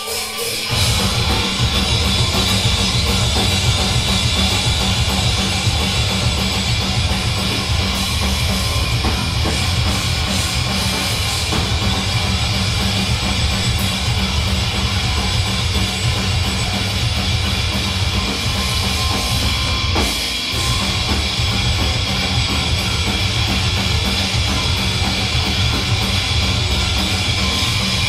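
Hardcore punk band playing loud and live, with electric guitar, bass guitar and drum kit. The full band comes in about a second in.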